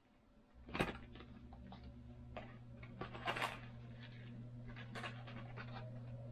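A few light clicks and clinks of small metal parts being handled, over a steady low hum that starts about half a second in.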